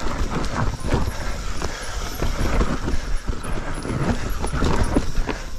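Mountain bike rattling and knocking over roots and rocks on a trail descent: a rapid, irregular clatter of hits over a low rumble of wind on the microphone.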